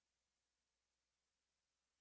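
Near silence: only faint, steady recording hiss.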